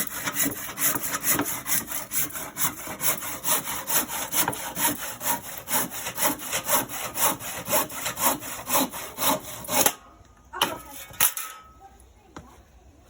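Hand saw cutting through a piece of wood in quick, even back-and-forth strokes that stop about ten seconds in, followed by a couple of light knocks.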